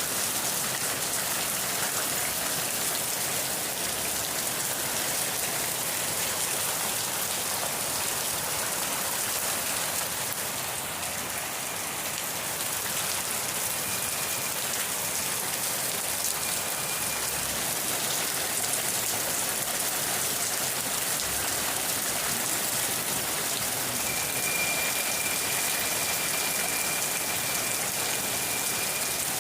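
Steady rain falling, an even hiss of drops on a surface with no pauses. A faint, thin, high steady tone comes in briefly about halfway through and again near the end.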